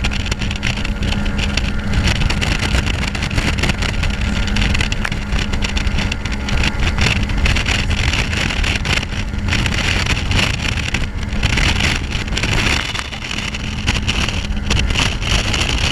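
Fiberglass cat-hull bay boat running at speed across choppy water: the steady drone of the outboard motor under the rush of wind on the microphone and water hitting the hull. The engine hum and the overall level dip briefly about thirteen seconds in.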